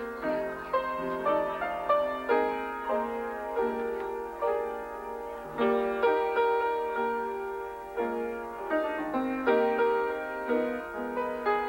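Piano being played: a tune in struck chords and melody notes, each note ringing and fading before the next.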